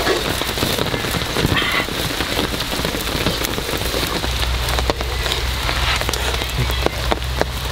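Pan of water at a rolling boil over a wood fire: dense, rain-like bubbling and spitting, with the fire crackling underneath. A low steady hum joins about halfway through.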